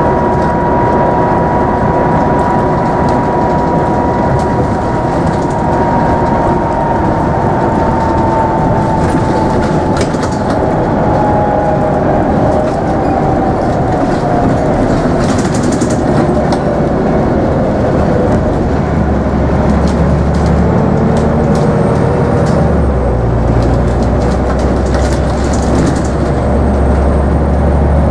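Scania N94UB Omnidekka double-decker bus on the move, heard from inside the passenger saloon: steady engine and road noise with a whine that slowly falls in pitch over the first dozen seconds. A deeper engine drone comes in about two-thirds of the way through, with occasional light rattles.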